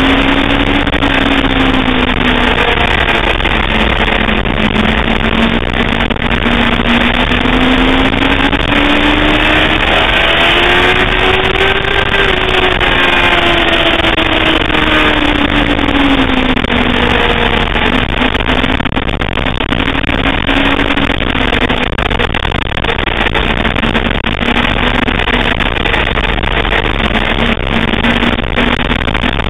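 Sportbike engine running at track speed under loud rushing wind noise. Its pitch climbs slowly to a peak about twelve seconds in, falls away over the next few seconds, then holds steady.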